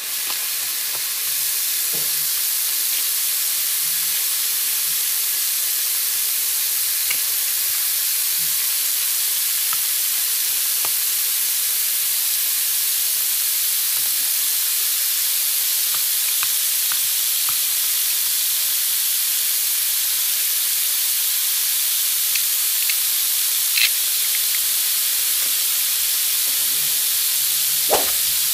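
Toy barbecue grill's electronic sizzling sound effect: a steady, high hiss at constant level, with a few light clicks of plastic toy food being set on the grate, the sharpest near the end.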